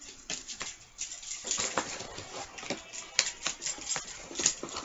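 Board game pieces and packaging being handled: many irregular small clicks and rustles as plastic pieces are picked up and set down.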